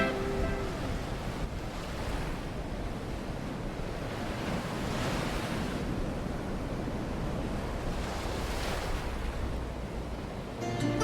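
Gentle ocean waves washing onto a shore, swelling and receding twice in the middle. The previous song fades out right at the start, and music comes back in near the end.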